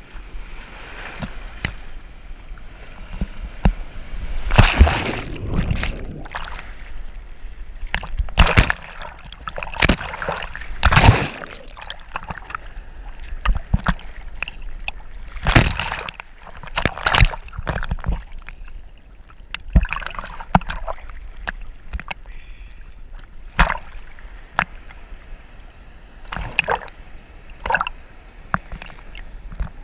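Sea water sloshing and splashing around a camera held at the surface of the surf, with about ten sudden loud splashes as waves wash over it, above a steady rush of water.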